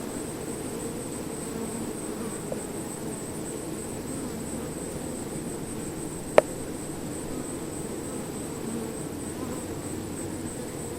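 A swarm of bees buzzing in a steady, dense hum. A single sharp click cuts through a little past halfway.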